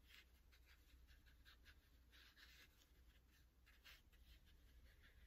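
Faint scratchy brushing of a flat watercolour brush on textured watercolour paper, a series of short strokes and dabs working blue paint into the wet background.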